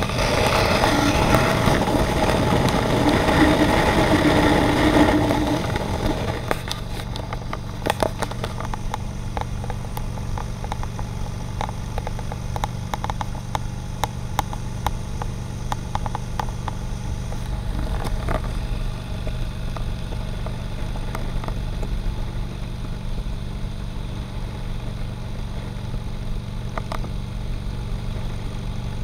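Motorcycle riding at highway speed, heard from a camera mounted on the bike: wind and road noise over a steady engine drone. It is louder and noisier for the first six seconds, then settles into a steadier drone, with occasional light clicks.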